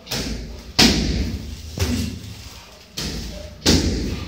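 Gloved punches and kicks landing during kickboxing sparring: about five heavy thuds, each with a short echoing tail, the loudest about a second in and again near the end.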